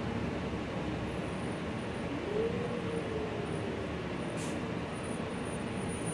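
Gillig low-floor city bus running, heard from inside the passenger cabin: steady engine and road noise with a whine that rises about two seconds in and then slowly falls away. A brief hiss comes about four and a half seconds in.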